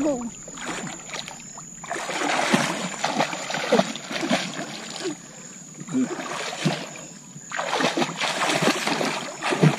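A child swimming and splashing in shallow water, in two bursts of splashing with a quieter stretch between.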